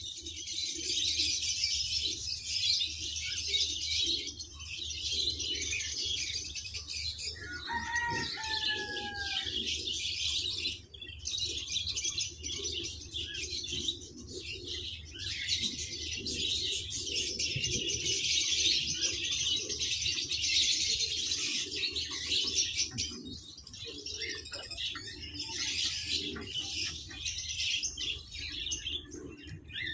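A dense, continuous chorus of many small caged birds chirping and twittering, with a short falling call about eight seconds in.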